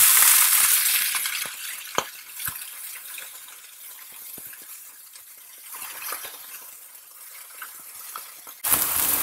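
Zucchini slices sizzling in oil on a hot griddle pan: loud at first, then fading to a quieter crackle, with two sharp clicks about two seconds in. Near the end the sizzling suddenly comes back loud.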